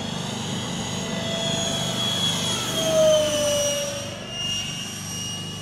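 Electric ducted-fan whine of a radio-controlled Eurofighter model jet in flight, a high whine that bends up and down in pitch as it manoeuvres, loudest about three seconds in and falling a little after.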